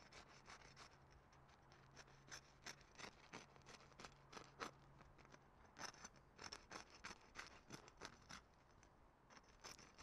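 Knife sawing through the crisp crust of a freshly baked bread roll: a faint, irregular run of crackling scratches and crunches as the blade works around the top.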